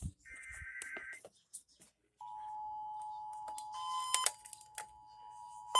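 A raspy burst of Emergency Alert System digital data tones lasting about a second. About two seconds in, the steady two-tone EAS attention signal starts, with a few clicks scattered through.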